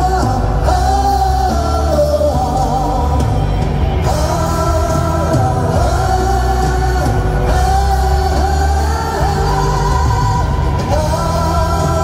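Live rock music with singing: a band playing a rock ballad with a sung melody over a steady, heavy bass and drums, heard from among the audience.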